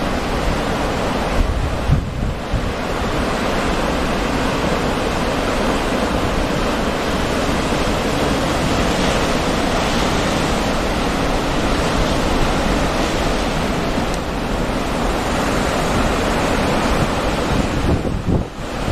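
Ocean surf breaking and washing in a steady rush, with wind buffeting the microphone in a few brief low thumps.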